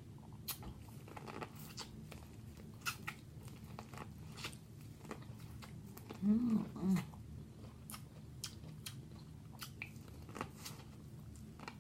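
Close-up eating of a seafood boil: chewing, lip smacks and sharp crunching clicks, with two short vocal sounds a little after six seconds in.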